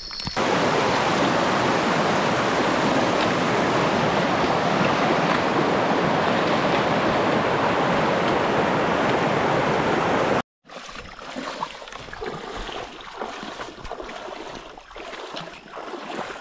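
Loud, steady rush of a fast-flowing mountain stream, which cuts off suddenly about ten seconds in. After the cut there are quieter, irregular scuffs and taps of footsteps on the trail.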